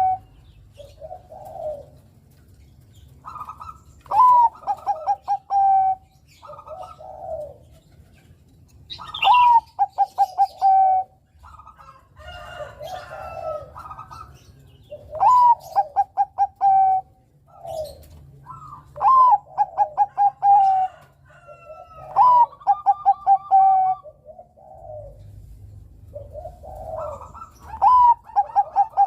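Perkutut Bangkok (zebra dove) cooing its song: a phrase that opens on a high note, runs into a quick stutter of short notes and ends in a held coo, repeated about six times, with softer, lower coos between the phrases.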